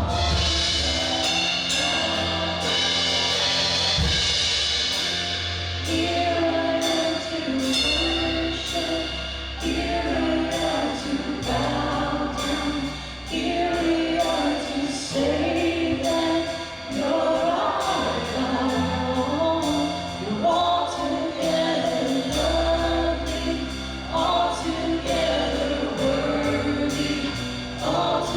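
Live contemporary worship music: a band with drums and bass playing while singers sing together.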